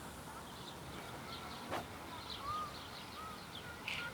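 Small birds chirping over and over, with short whistled notes mixed in. A single sharp click sounds about halfway through.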